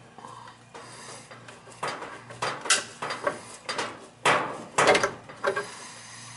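Sharp knocks and clatters of a braided washing machine supply hose being unscrewed by hand from its shutoff valve and pulled out of the plastic wall box, a string of them starting about two seconds in.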